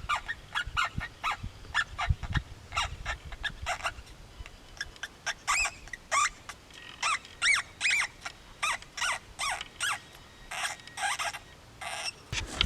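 FoxPro X24 electronic predator call playing a distress sound: a rapid series of short squealing cries, about two or three a second, each bending up and down in pitch.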